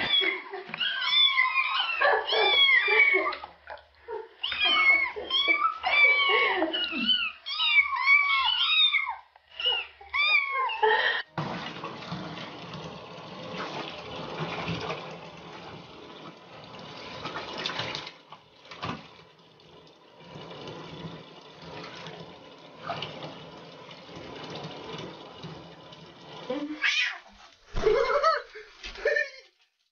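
A litter of young kittens mewing, many high, overlapping mews one after another. After about eleven seconds this gives way to a steady rush of running water in a bathtub, with a few short knocks near the end.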